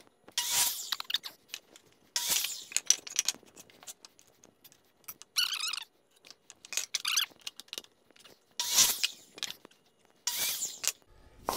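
A series of about six short scraping and squeaking noises of lumber being handled and slid about, each under a second, cut apart by sudden silences.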